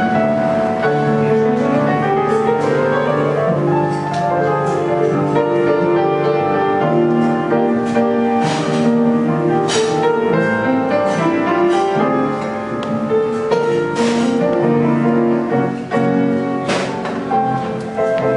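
Piano played live: a flowing melody with quick rising and falling runs of notes over held lower notes.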